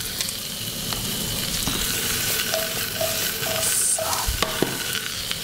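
Green asparagus and morels sizzling in butter and olive oil in a frying pan as the pan is swirled and tossed. A few short squeaks come about halfway through.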